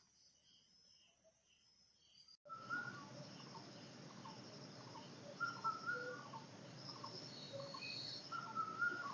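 Faint insects chirping at night in a high, evenly repeating pulse. About two and a half seconds in, this cuts off abruptly and gives way to quiet morning ambience with birds calling in short chirps and whistles.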